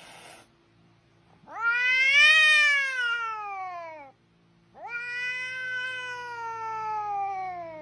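Cat yowling in two long drawn-out calls, the first rising and then falling, the second longer and sliding slowly down in pitch: an angry cat's caterwaul.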